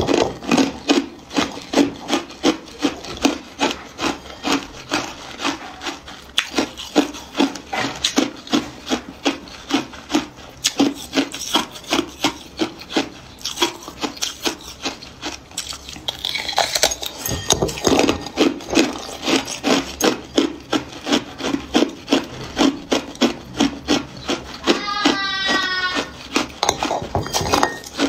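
Hard clear ice being chewed close to the microphone: a steady run of crisp crunches, about two to three a second. A brief rising squeak comes near the end.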